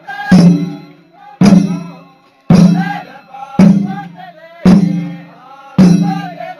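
A drum beaten at a slow, steady pace, six loud strokes about a second apart, each ringing out and dying away, with a group of voices singing between the beats for a Zeme Naga folk dance.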